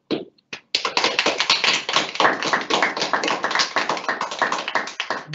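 Hands clapping: a couple of short knocks, then a run of many quick, sharp claps starting about a second in.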